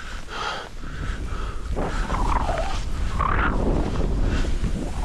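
Skis hissing and scraping over snow in irregular turns, with wind rumbling on the microphone.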